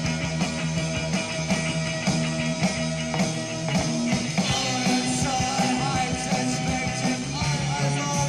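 Psychedelic post-punk rock band playing, with held bass notes under a steady drum beat. A higher wavering melodic line comes in about halfway through.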